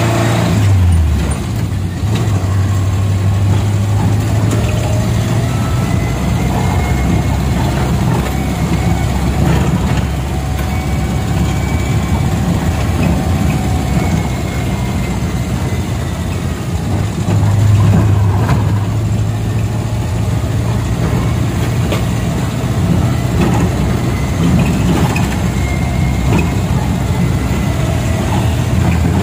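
Engine and road noise heard from inside a moving angkot minibus. The engine note drops about a second in and swells louder again at about eighteen seconds.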